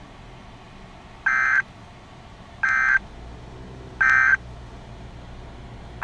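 Emergency Alert System end-of-message signal: three short bursts of harsh buzzing SAME data tones, each about a third of a second long and about a second and a half apart, marking the end of the weather warning broadcast.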